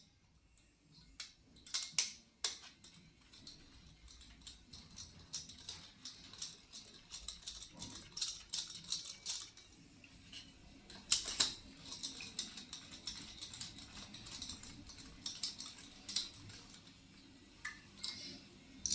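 Irregular small metallic clicks and taps from gloved hands and hand tools working on a 2.0 TDI cylinder head, moving the compression-gauge fitting from one cylinder to the next during a cold compression test. The sharpest knocks come about 2 seconds and 11 seconds in.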